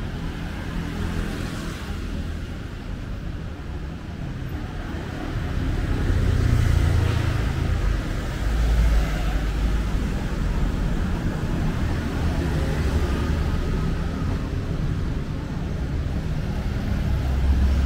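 Road traffic: motor vehicles passing close by, a steady low engine rumble that swells about six seconds in and again near the end.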